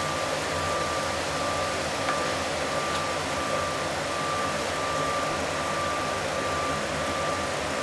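Steady rush of a restaurant gas range and kitchen ventilation, with cauliflower sizzling in a sauté pan over a high gas flame. Underneath is a low hum, with a thin whine that keeps breaking in and out.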